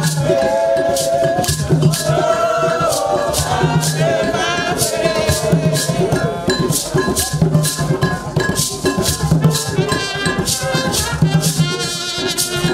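Choir singing together outdoors to shaken rattles that keep a steady beat, about two shakes a second, with a low pulse underneath.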